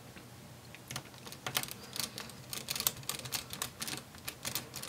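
Small Phillips screwdriver driving the M.2 SSD's single retaining screw back in: a run of light, irregular clicks and ticks as the bit turns in the screw head.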